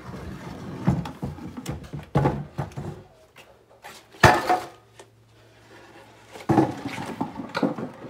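Footsteps and a paper grocery bag rustling while it is carried, with scattered knocks and one loud thump about four seconds in.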